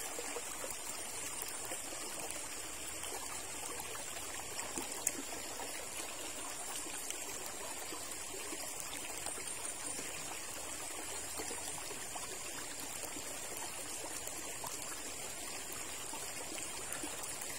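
Shallow river water trickling and flowing steadily over rocks, with one faint click about five seconds in.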